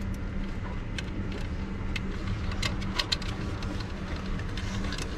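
Steady low mechanical hum, with scattered light clicks and rustles of wire and metal being handled.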